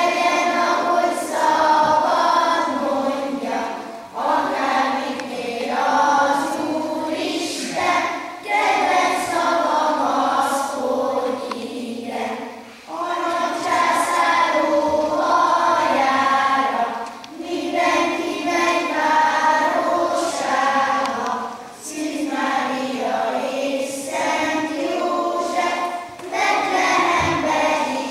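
Children's choir singing together in phrases of about four seconds, with short breaks between them.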